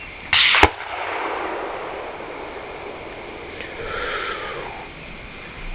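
A single distant rifle shot about half a second in, just after a brief loud rush of hiss, followed by a few seconds of rolling echo. The shot is aimed at a Tannerite-packed car.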